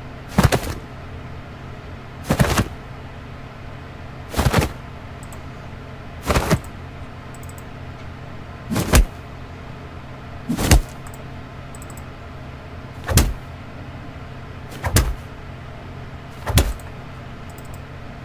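Close-combat fight sound effects, short hits and impacts, played one at a time: nine sharp blows about two seconds apart.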